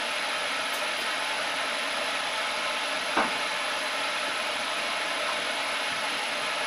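Grizzly metal lathe's spindle running steadily at about 315 rpm with no cut being taken, a steady whir with a hiss from the motor and gearing. One brief short chirp about three seconds in.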